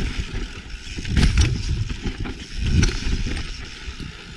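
Mountain bike riding over a rough, rocky trail: tyres rolling over dirt and rock with knocks and rattles from the bike, and heavy low rumbles that swell about a second in and again near three seconds.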